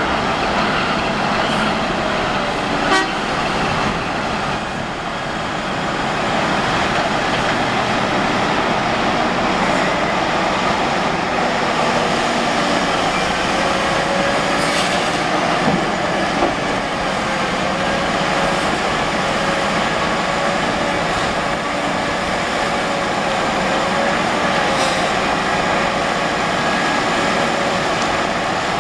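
Cat 5130 hydraulic mining excavator digging: its diesel engine running steadily under load with a wavering whine, and a few short knocks as the bucket works the bank.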